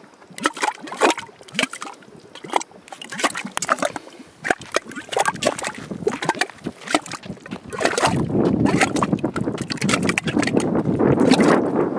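Mud volcano vent gurgling: gas bubbling up through wet mud in irregular pops and plops. About two-thirds of the way in it turns into a louder, continuous churning gurgle.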